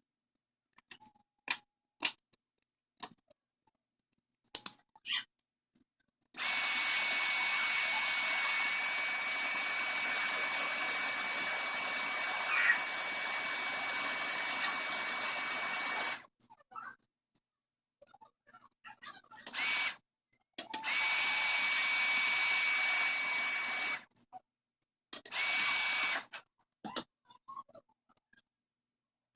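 A small electric tool running in bursts, with a steady hiss and one thin high whine. It makes one long run of about ten seconds, then a short blip and two shorter runs, with light clicks and handling noises in between.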